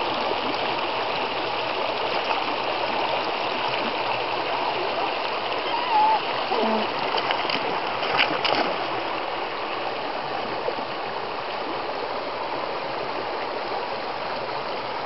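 Creek water running steadily, with a few short splashes around eight seconds in.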